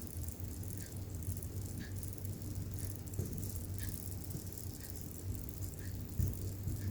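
Termites rattling, a dense, dry crackling as soldier termites drum against the nest to signal alarm at an enemy. A steady low hum runs underneath.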